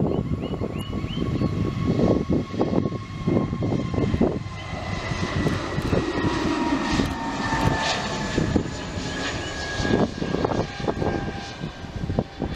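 Jet engines of an Airbus A320neo airliner running, a loud low rumble with a thin engine whine that slowly falls in pitch across several seconds, broken by gusty bursts.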